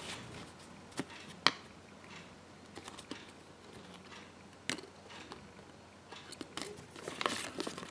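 Quiet handling noise from a paper toy-insert leaflet held in the hands: a few isolated sharp clicks, the loudest about one and a half seconds in and another near five seconds, then soft paper rustling near the end as the leaflet is turned over.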